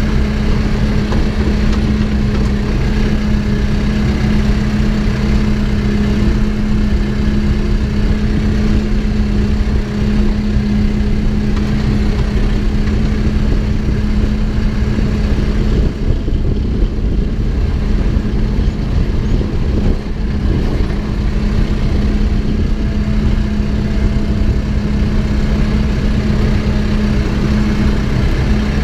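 Backhoe engine running steadily with a constant low hum and rumble, with a brief dip in the higher part of the sound around the middle.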